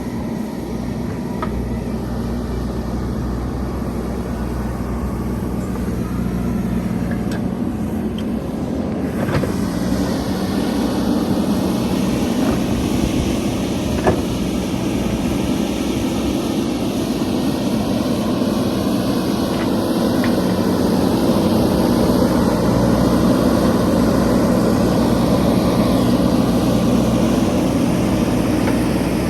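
JCB 3DX backhoe loader's diesel engine running steadily, getting louder about ten seconds in and again about two-thirds of the way through, with a sharp knock near the middle.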